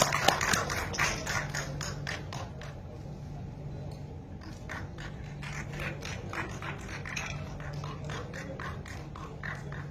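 Irregular clicks and taps, several a second, over a steady low hum.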